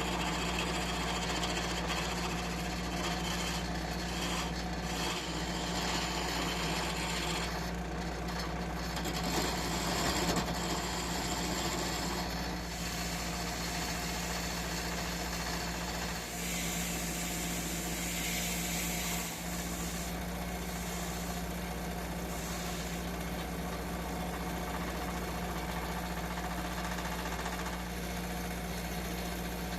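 Electric motor of a workshop power tool running steadily with a constant low hum. A hiss in the upper range comes and goes, strongest a little past the middle.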